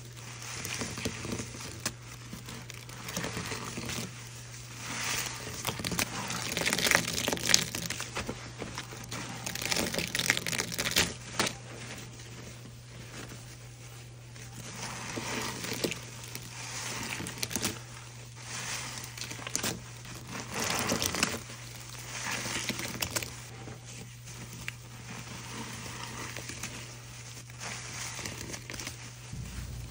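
Foam-soaked horse sponges squeezed and kneaded by gloved hands in a basin of thick soapy suds: a wet, crackly hiss of foam that swells and fades with each squeeze, every second or two.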